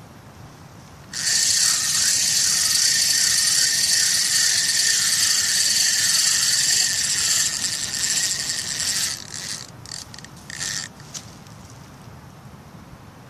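Spinning reel's drag screeching as a hooked tilapia pulls line off the spool. It starts suddenly, runs steadily and high-pitched for several seconds, then stutters in short bursts and stops.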